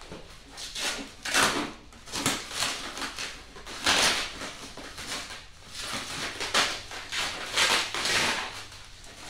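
Plastic packaging crinkling and rustling as it is handled and pulled free, in a series of irregular bursts.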